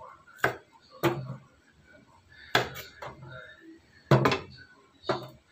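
Kitchen knife chopping long beans on a wooden cutting board: sharp knocks of the blade hitting the board at irregular intervals, about seven in all, some in quick pairs.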